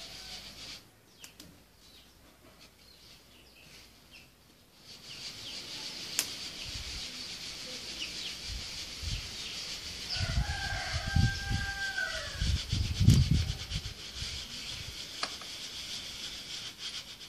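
Semolina grains hissing as they are shaken in a round sieve, with chickens clucking in the background. About ten seconds in a rooster crows once, for about two seconds, alongside some low thuds.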